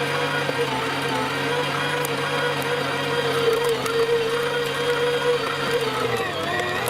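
Electric meat grinder's motor running steadily, with a few faint clicks partway through. Its pitch dips briefly near the end.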